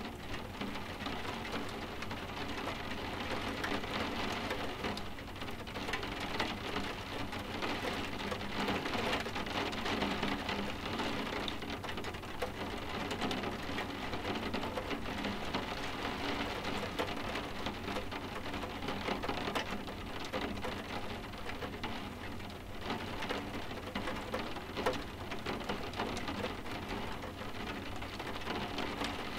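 Steady rain tapping on window glass: an even hiss of many small drop ticks that holds throughout without a break.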